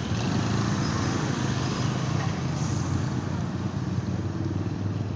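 A small engine running steadily at a low even pitch, over the general noise of a busy open-air market.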